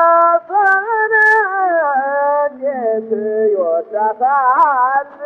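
A man singing in an Ethiopian style, his voice bending and wavering through held notes, accompanied by the masinqo, a one-string bowed fiddle. It comes from an early shellac-disc recording.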